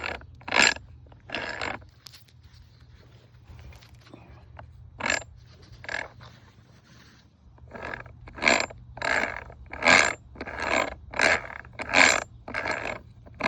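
Metal gears of a Peerless 700 lawnmower gearbox worked by hand, giving short scraping strokes: a few scattered ones, then a quicker run of about nine, roughly two a second, in the second half. The gears fit poorly, and the owner suspects a bent countershaft.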